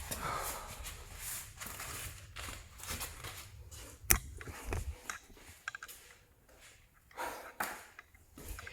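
Faint scattered clicks and knocks of tools and parts being handled, with one sharp click about four seconds in.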